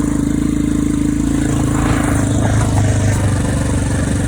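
ATV engine running steadily, with a deeper low note swelling in the middle for a second or two.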